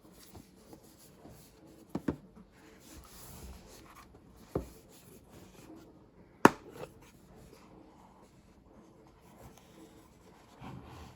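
A box and its packaging being handled: rubbing and scraping, with a few sharp knocks (a double one about two seconds in, another near the middle, the loudest about six and a half seconds in) and a brief rustle near the end.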